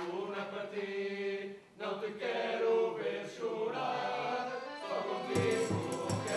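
A student tuna (Portuguese academic music group) singing in chorus, with accordion, acoustic guitar and mandolins. The singing breaks off for a moment about two seconds in, and a strong strummed beat comes back in near the end.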